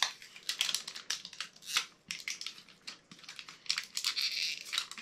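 Plastic wrapping on an LOL Surprise ball crinkling and tearing as it is peeled off by hand, in irregular crackles and short rustling bursts.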